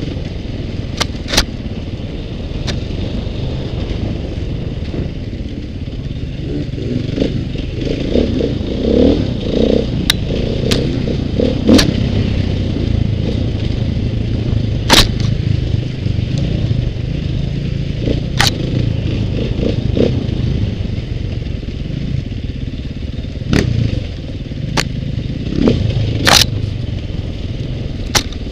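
On-board sound of a KTM 450 single-cylinder four-stroke dirt bike engine running as the bike is ridden, with about a dozen sharp knocks and clatters scattered through it.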